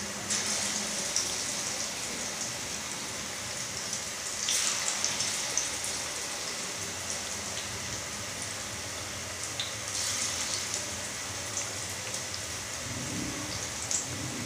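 Pakoras deep-frying in hot ghee in a steel pan: a steady crackling sizzle. It surges louder for a moment near the start, about four and a half seconds in and about ten seconds in.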